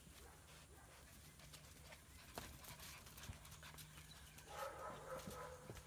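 Faint, scattered clicks of German Shepherd puppies' claws on concrete pavers as the litter walks about, with a short, faint pitched sound near the end.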